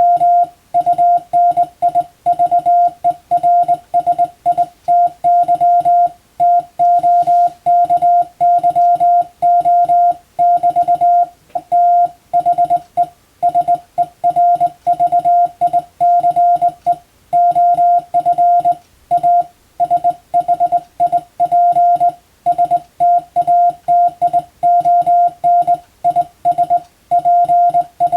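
Morse code (CW) sent as a single steady beep keyed on and off in quick dots and dashes, with short gaps between letters and words.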